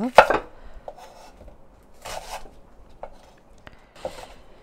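Chef's knife cutting stalks of Korean green onion lengthwise on a wooden cutting board. A sharp knock of the blade on the board comes just after the start, then a few short scraping strokes through the stalks.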